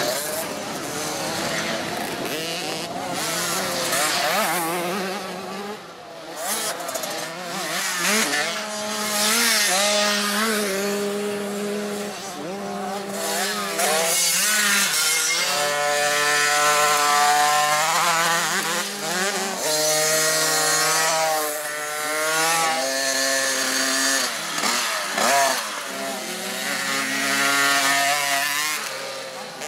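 Small two-stroke youth motocross bikes revving hard on a dirt track, the buzzing engine note rising and dropping over and over as the riders shift gears and back off.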